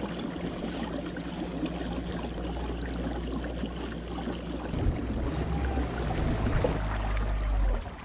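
Fishing kayak under way: water rushing along the hull over a steady low hum from its drive. The hum shifts and grows louder about five seconds in, then cuts off just before the end.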